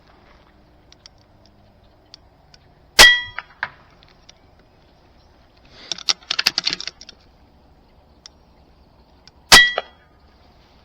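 Two shots from an RTI Arms P3 PCP air rifle with a moderator, about six and a half seconds apart, each a sharp crack with a short metallic ring. Between them comes a brief burst of mechanical clicking as the action is cycled to load the next pellet.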